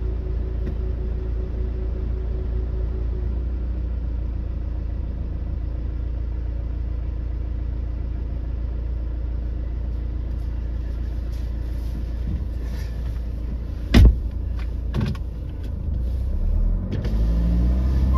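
Pickup truck engine idling with a steady low rumble. About fourteen seconds in there is one loud bang, then a lighter knock about a second later.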